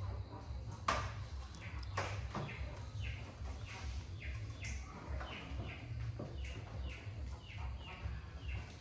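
An animal's repeated short, high chirps, each falling in pitch, about two to three a second, starting a couple of seconds in. A few sharp clicks come before them.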